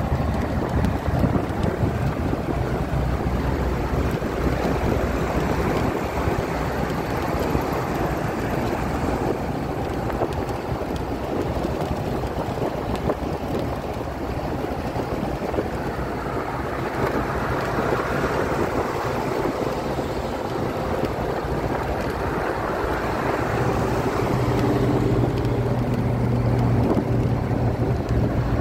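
Wind and road noise inside a car at highway speed, with its engine running steadily underneath; a low engine hum grows stronger near the end.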